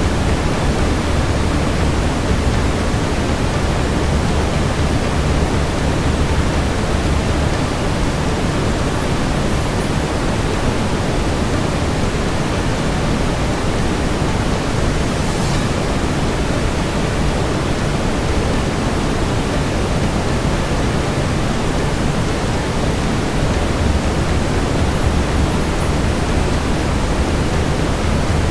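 Steady brown noise, an even low rushing hiss weighted toward the bass, with a faint crackle of a fireplace now and then, clearest about halfway through.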